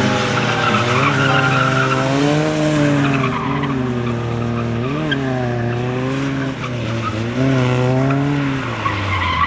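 Lada Zhiguli sedan's engine revving hard while the car drifts on a loose sandy surface, its pitch rising and falling several times as the throttle is worked. Tyres hiss and scrub as they slide.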